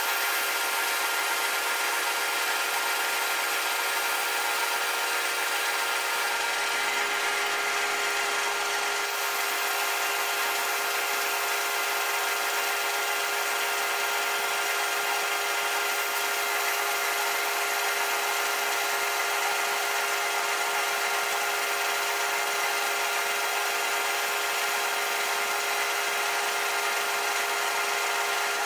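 Holzmann ED750FD metal lathe running steadily with a long steel shotgun barrel spinning in it: a constant motor whine under a rough rubbing hiss from a flat abrasive tool held against the turning barrel to polish it.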